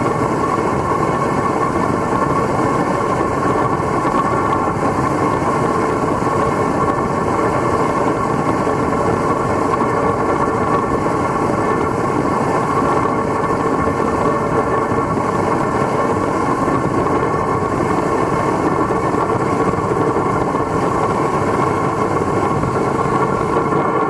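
Homemade siphon-nozzle foundry burner running, a loud, steady rush of flame and forced air.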